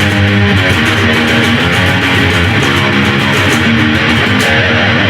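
Intro music: loud, guitar-driven rock with a steady beat.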